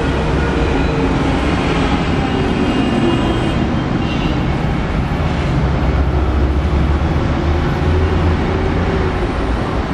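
Busy city road traffic: buses and cars passing close by, a steady rumble of engines and tyres, a little heavier about six seconds in.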